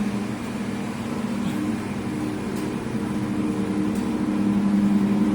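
Steady hum of machinery at a wastewater treatment plant, a low droning tone over an even rushing noise, growing a little louder near the end.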